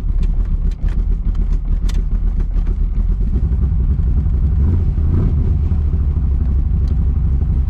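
1982 Chevrolet Camaro engine idling steadily, heard from inside the cabin. There are a few light clicks in the first couple of seconds as the console automatic shift lever is worked.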